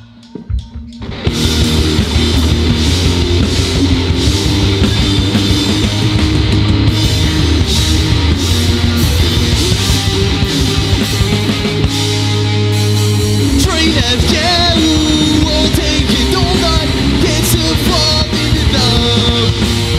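A punk rock band starting a song live, taken straight from the mixing desk: after about a second of near quiet, drums, electric guitar and bass come in together and play on steadily, and a voice starts singing about two-thirds of the way through.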